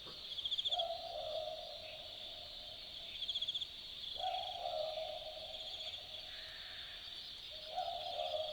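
Australian Boobook owl giving its two-note 'boo-book' call three times, a low hoot repeated about every three and a half seconds. Twice, a short rapid high trill sounds over it, against a steady high chorus of insects.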